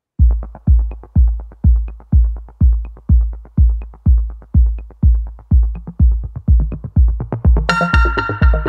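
Electronic background music: a steady kick drum at about two beats a second, joined near the end by synth chords.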